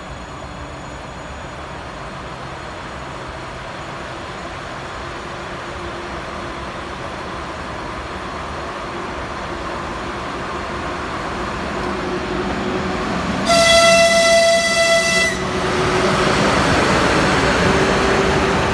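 ChS7 electric locomotive hauling a passenger train, its running noise growing steadily louder. About two-thirds of the way in, its horn sounds one steady, high blast lasting about two seconds, and the louder rumble of the train carries on after it.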